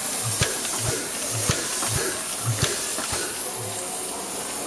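1935 Bulgarian steam locomotive with steam hissing steadily from around its cylinders and driving wheels. A soft low thump repeats about one and a half times a second, with a few sharp clicks.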